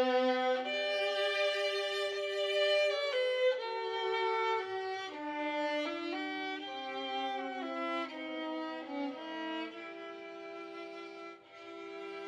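Background instrumental music: a slow melody of held notes with a bowed, violin-like sound, settling on a long sustained note about ten seconds in.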